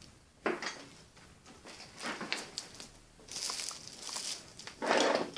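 Rustling and crinkling of small items being rummaged through by hand, in several short separate bursts, the last near the end the loudest.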